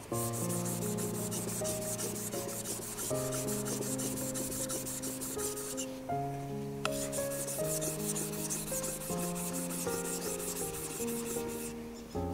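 Steel kitchen knife, a warikomi santoku, stroked quickly back and forth on a wet whetstone, giving a rhythmic scraping hiss. It stops briefly about six seconds in, then resumes until just before the end, over quiet background music.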